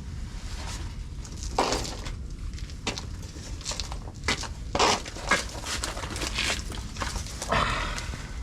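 Footsteps crunching unevenly over rough ground, with several heavier scuffs, over a steady low rumble.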